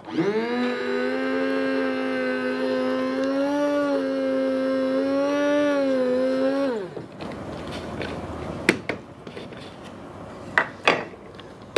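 Small electric blade grinder running with a small load of bran: the motor whine rises as it spins up, holds steady for about seven seconds, then falls away as it is switched off. The load is too small for the grinder to grind it well. A few sharp knocks follow near the end.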